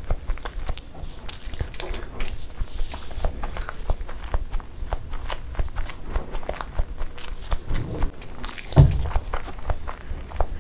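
Close-miked chewing and biting of soft boiled eggs in masala gravy, with irregular wet mouth clicks throughout. A dull low thump about nine seconds in is the loudest sound.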